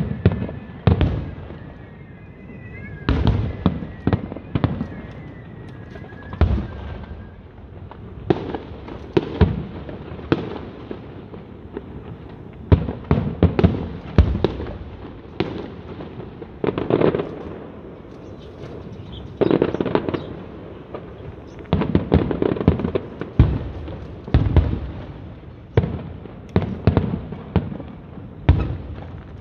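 Fireworks display: loud bursts and booms going off in an irregular run throughout, some single and some in quick clusters of several.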